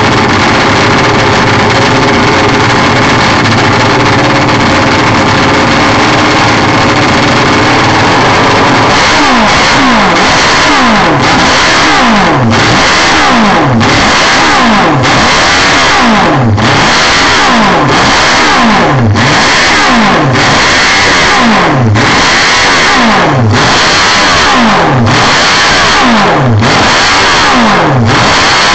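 Classic Benelli racing motorcycle engine, loud, running steadily at first, then revved in a regular series of throttle blips about every second and a half from about nine seconds in, the pitch dipping and snapping back up each time.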